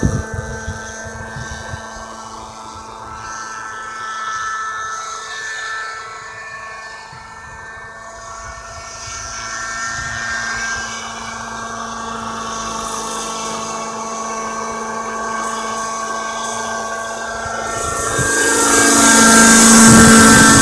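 Radio-controlled Raptor 50 nitro helicopter in a Bell 206 LongRanger scale body flying, its glow engine and rotors running as a steady whine. Near the end it grows much louder and its pitch slides as it passes overhead.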